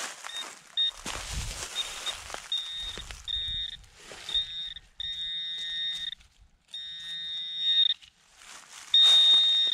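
Metal detector's high-pitched buzzing tone as it is passed over a buried metal target: a few short beeps, then longer, steadier tones, the loudest one near the end, showing the target is still in the hole. Some low scuffing of handling and dirt in the first few seconds.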